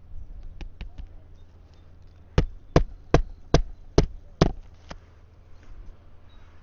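Hammer driving a roofing nail through an asphalt shingle into the roof decking: a few light taps to set the nail, then six hard, evenly spaced strikes about two and a half a second.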